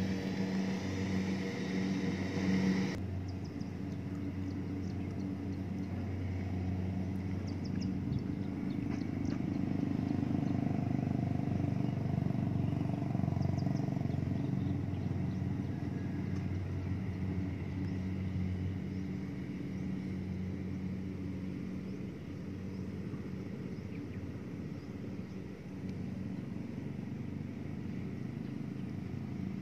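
Small rice combine harvester's engine running at a steady pitch, a continuous drone whose tone changes abruptly about three seconds in.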